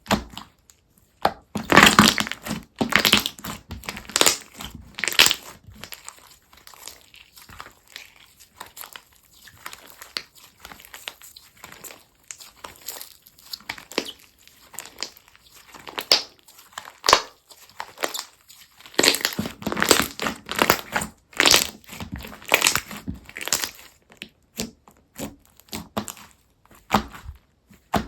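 Textured slime squeezed and pressed by hand, giving irregular crunchy crackles and pops. There are two loud spells of crackling, early on and again about two-thirds of the way through, with quieter squishing between.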